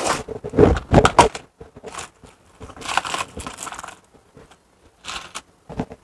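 Hands rummaging through a plastic parts organizer, handling small plastic bags of crimp terminals, in several short bursts of rustling.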